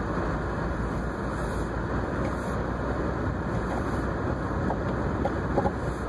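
Steady in-cabin rumble of a car driving on a snow-covered road, engine and tyres on packed snow, with a few faint short ticks near the end.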